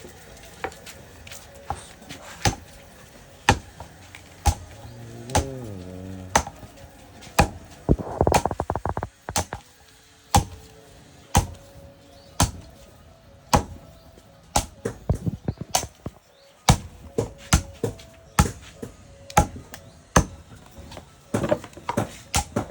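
Repeated chopping strikes on wood, about one blow a second, with a quick rattle of hits about eight seconds in and faster clusters of blows later on.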